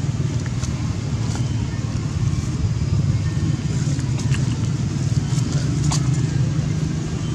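Steady low engine drone, like a motor vehicle running nearby, with a couple of faint sharp clicks.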